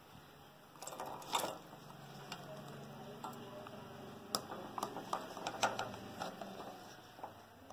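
Pieces of fresh coconut dropping and sliding into an empty stainless-steel mixer-grinder jar: a run of light clicks and knocks, loudest a little over a second in and again between about four and six seconds.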